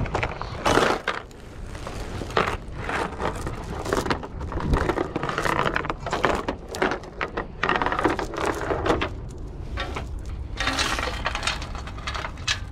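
Metal chain rattling and clinking against plastic dumpster lids as it is handled, with repeated knocks and clatters.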